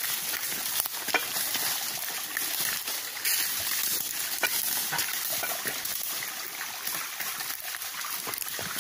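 Shallow stream water running and trickling over rocks, a steady hiss, with scattered clicks and knocks of footsteps on stone.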